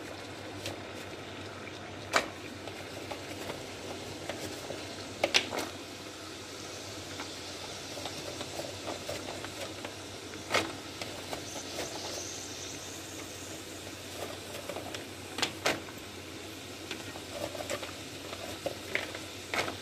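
Salted water boiling in a stainless steel pan, with several sharp knocks as raw peanuts in the shell are dropped into it.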